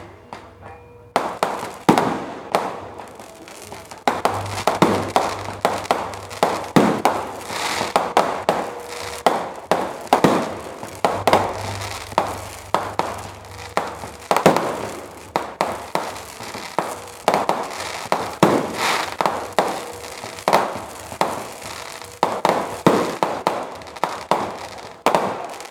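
Fireworks going off in a rapid, continuous barrage of sharp bangs and crackles, several a second, beginning about a second in with only brief lulls.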